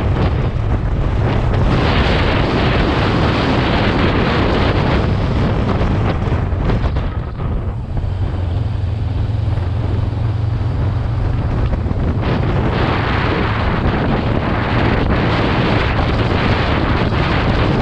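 Wind buffeting the microphone: a loud, steady rushing that eases briefly about seven seconds in.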